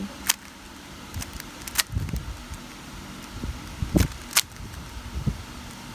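GAN 356 X magnetic speedcube being turned by hand: its plastic layers turn with four sharp clicks and a few soft thuds of handling.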